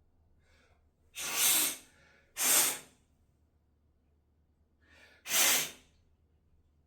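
Three short bursts of hiss, each about half a second long: two close together about a second in, and a third near the end.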